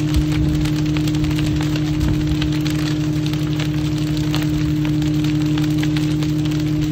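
Steady drone of a running engine, with a dense, continuous crackling over it.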